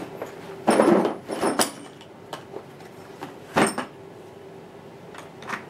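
Socket set case being set down and opened: a loud clatter about a second in, then sharp clicks and a metallic clank as the sockets are handled.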